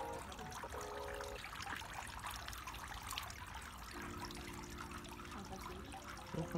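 Water trickling steadily from the spouts of a bamboo pipe into the stone basin of a Shinto shrine's purification fountain. A faint steady pitched hum comes in briefly about a second in and again from about four seconds in.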